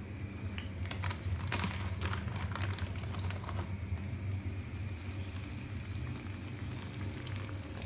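Fish fillets frying in hot oil in a pan. The oil crackles and spatters in quick, irregular pops over a low steady hum.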